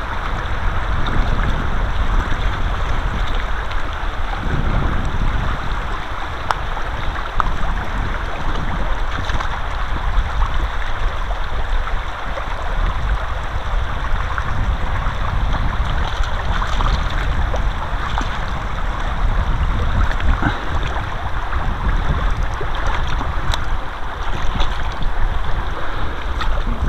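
Steady rush of river water along the bank, with wind rumbling on the microphone.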